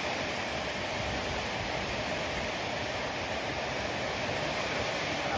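Radio static: a steady, even hiss from a radio receiver with no station coming through, as if tuned off the station it was playing.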